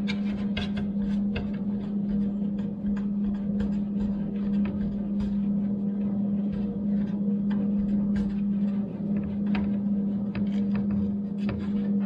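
A steady low hum, with irregular light clicks and knocks of metal parts and hand tools being handled as a Craftsman table saw is put back together.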